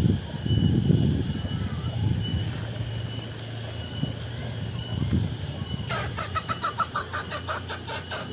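Steady high drone of cicadas, with low rumbling thumps through the first half. About six seconds in, a chicken starts clucking in a quick, even series of about five or six clucks a second.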